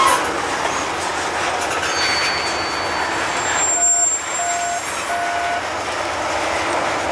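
Freight railroad cars rolling along the track, a steady rushing rumble. About four seconds in come three short beeps at one pitch.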